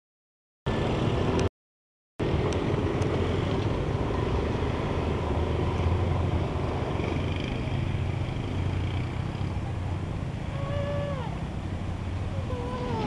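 Steady low engine rumble of a diesel train, fading slowly as the train draws away. The sound cuts out completely twice in the first two seconds. Near the end there are two short falling cries.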